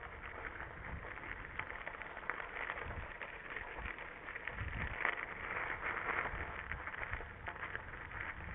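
Mountain bike rolling along a rough gravel track, the tyres crunching with many small clicks of stones, and wind rumbling on the microphone.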